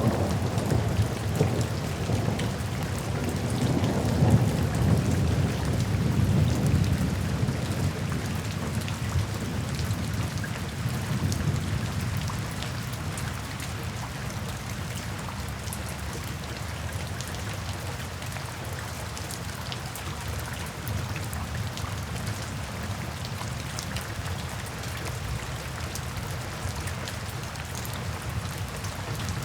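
Steady rain falling into puddles and standing water, with a low rumble of thunder that dies away over roughly the first ten seconds.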